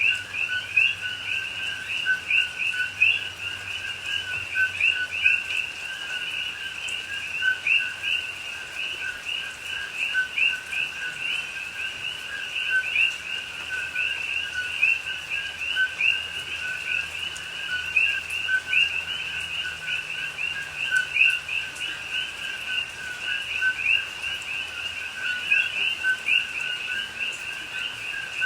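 Dense chorus of many coqui frogs calling together, each call a short two-note "co-qui" whose second note sweeps upward, overlapping into a continuous rapid pulsing.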